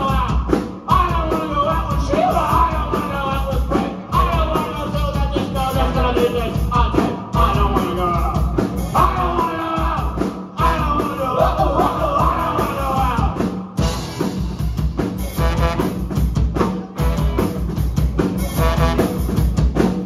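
Live ska-punk band playing: trombone carrying a melody over electric guitars, bass and a drum kit keeping a steady beat.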